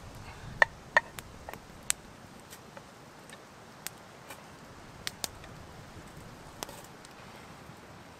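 Fish fillets frying in butter in a pan over an open wood fire: irregular sharp pops and crackles over a faint steady hiss. The pops come in a quick cluster in the first two seconds, then a few more scattered.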